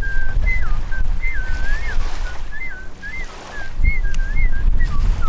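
A person whistling a short wandering tune, in quick notes with slides up and down, ending on a long falling note, over a steady low rumble.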